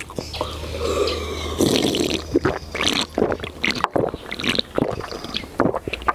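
A person gulping a drink down from a can, with repeated swallowing and the liquid sloshing.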